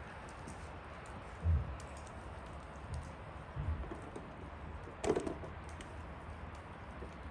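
Campfire crackling: scattered small sharp snaps over a steady hiss, a few soft low pops, and one louder crack about five seconds in.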